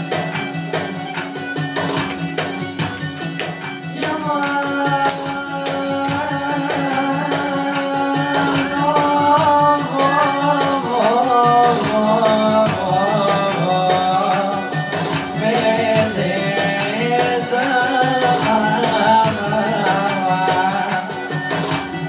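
Albanian folk-pop song: a man sings into a microphone over an instrumental backing with a steady low drone, the vocal line coming in about four seconds in.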